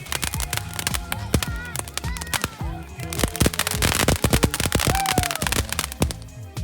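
Fireworks crackling and popping in rapid bursts, densest in a flurry in the second half, with music playing underneath.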